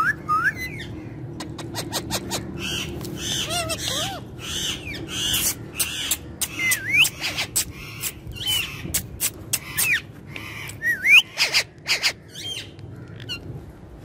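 Ringneck parakeets calling in short chirps, squawks and quick rising and falling whistled notes, with a run of repeated calls about three seconds in and sharp clicks in between.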